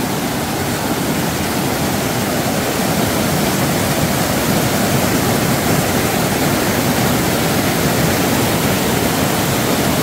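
Waterfall pouring a heavy flow of water into a pool, heard close up: a loud, steady rush of churning white water.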